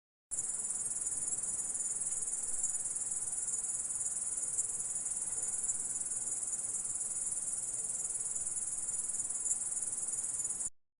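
Orthopteran insect stridulating: one continuous, high-pitched trill that starts abruptly and stops shortly before the end.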